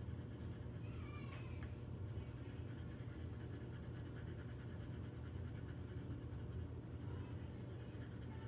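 Steady low electrical hum, with a brief high, wavering squeak about a second in.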